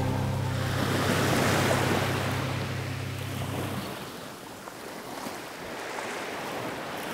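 Ocean surf washing in as a soft, even rush that slowly fades. A low steady hum holds under it for the first few seconds and cuts off about four seconds in.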